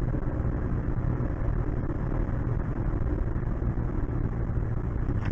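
Steady road and engine noise of a moving car, picked up inside the cabin by the dashboard camera.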